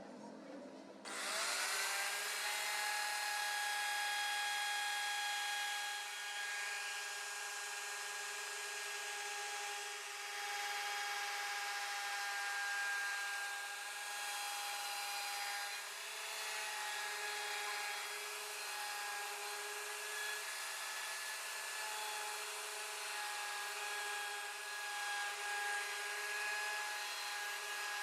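CNC router spindle starting about a second in: its whine rises as it spins up, then holds steady. The bit then cuts into the MDF board with a steady high whine over a rough, wavering cutting noise.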